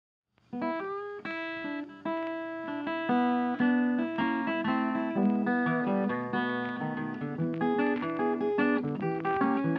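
Background music of a plucked acoustic guitar, coming in suddenly about half a second in after silence.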